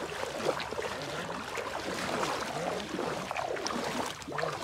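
Shallow seawater sloshing and splashing around the legs of people wading through it and dragging a net.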